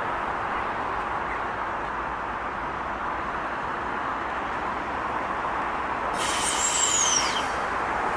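Steady whir of a stationary NSW TrainLink V-set double-deck electric train's onboard equipment. About six seconds in comes a sharp hiss of air with a falling whistle, lasting about a second and louder than the rest, from the train's air-brake system.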